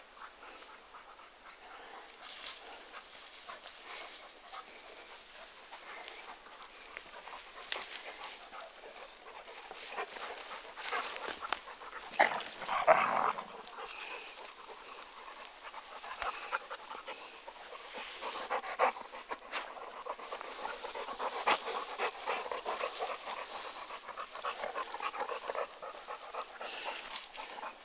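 A dog panting, with scattered clicks and rustles throughout and a louder noise about twelve seconds in.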